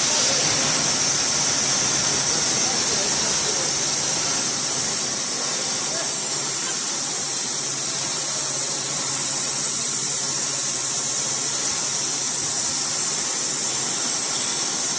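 Dack SMA 1000 T semi-automatic sawmill running, its 11 kW electric main motor and saw making a loud, steady hiss that holds level throughout.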